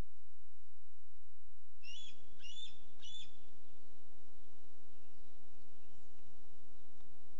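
Bald eagle giving three short, high chirps in quick succession about two seconds in, over a steady electrical hum from the nest camera's audio.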